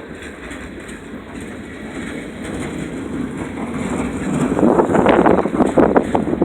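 Freight train cars rolling past, their wheels clacking over the rail joints, with a burst of louder, irregular clanks and knocks starting about four and a half seconds in.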